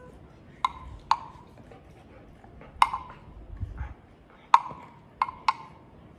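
Wooden handle castanet clacking six times at uneven intervals, each a sharp wooden click with a short ring.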